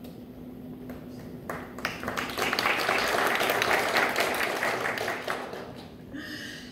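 Audience applause that starts about a second and a half in, swells, and dies away near the end.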